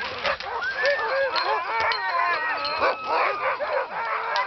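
A yard of sled dogs barking, many dogs at once, with short calls overlapping one another without a break.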